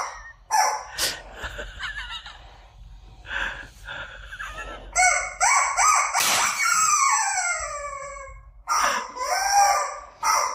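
Cartoonish squawking sound effects in short bursts, with a long falling, sliding squeal from about six seconds in.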